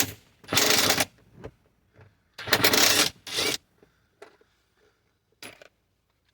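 A socket wrench loosening the 10 mm bolts that hold the side mirror to the door: four short bursts of rapid ratcheting, then a couple of light metal clicks.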